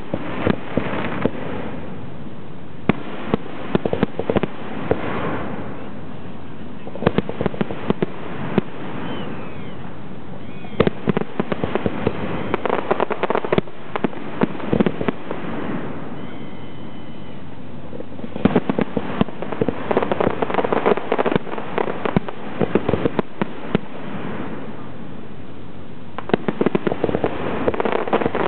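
Aerial fireworks shells of a professional display bursting, many sharp bangs and crackles coming in volleys every few seconds.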